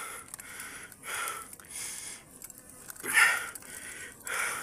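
A cyclist panting hard, about one heavy breath a second, the loudest a little past three seconds in: the strain of pedalling up a long climb.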